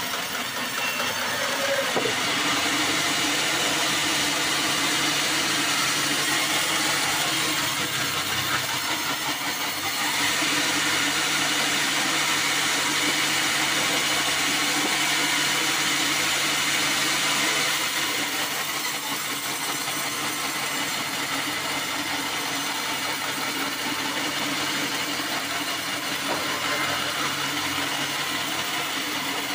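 A band sawmill running, its blade cutting lengthwise through a black acacia log with a steady machine hum and a hissing rasp. The cutting gets louder about two seconds in and stays that way until about eighteen seconds, then drops to a quieter steady running.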